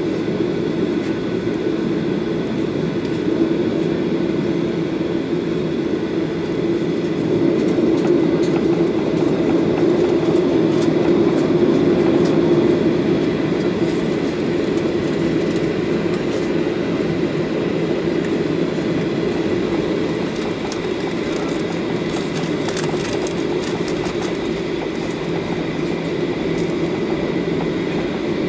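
Cabin noise inside a Boeing 737-800 taxiing: the CFM56 engines at taxi power give a steady hum with a faint whine, over the low rumble of the aircraft rolling along the taxiway. The noise swells a little about a third of the way in.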